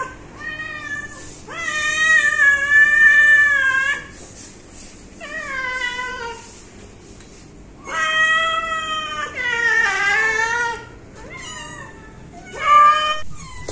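Domestic cats meowing over and over, about seven long, drawn-out meows with short pauses between them, each call bending up and down in pitch.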